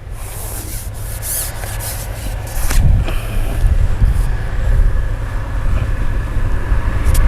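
Wind buffeting the microphone as a loud, uneven low rumble that grows louder about three seconds in, with rustling and rubbing handling noise over it.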